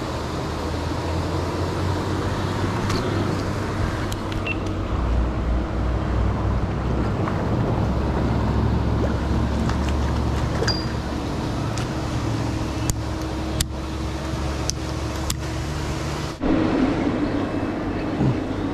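Steady wash of spraying water with a low motor hum from the pond's aerator fountains. A handful of sharp clicks sound in the second half.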